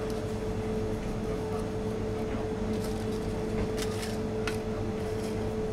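Steady machine hum with a constant tone over a low rumble, with a few light metallic clicks of aluminium tart tins being handled near the middle.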